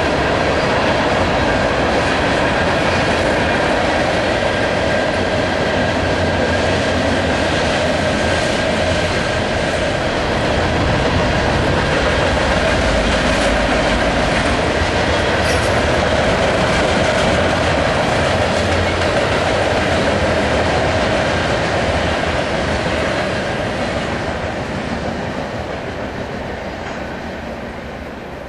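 Freight cars rolling past on steel wheels and rails, a steady loud running noise that fades over the last several seconds as the end of the train goes by.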